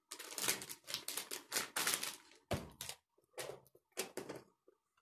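Plastic grocery packaging crinkling and rustling as it is handled and wiped, a dense run of crackles for the first couple of seconds, then a few separate sharper knocks as packages are set down on the table.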